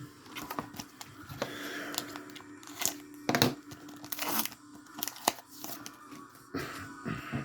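Foil Pokémon booster pack wrapper being torn open and crinkled, with irregular rustling and crackling of the foil and cards.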